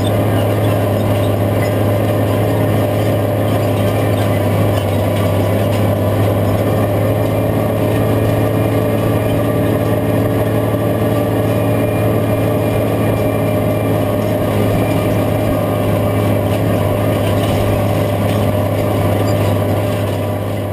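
Case IH 5230 tractor's diesel engine running steadily under load while pulling a field cultivator through the soil.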